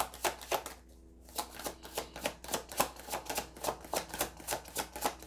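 Tarot cards being shuffled by hand: a rapid run of card clicks, about six a second, with a brief pause about a second in.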